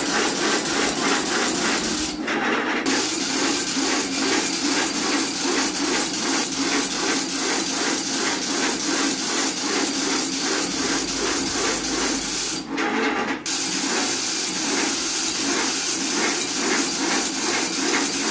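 Fully automatic agarbatti (incense stick) making machine running at speed: a fast, even mechanical clatter of its stick-feeding and rolling mechanism. The clatter thins briefly twice.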